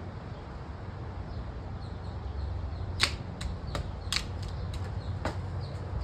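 Dead tree wood cracking and snapping as it is broken by hand: a quick run of about seven sharp cracks, starting about halfway in and lasting a couple of seconds, over a low steady rumble.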